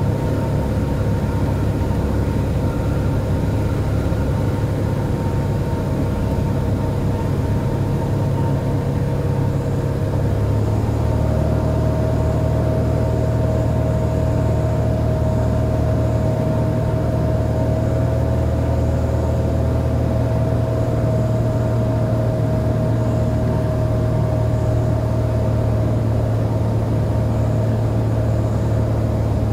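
Cessna 182R's six-cylinder piston engine and propeller droning steadily, heard inside the cockpit. About ten seconds in, the tone of the drone steps slightly higher and holds there.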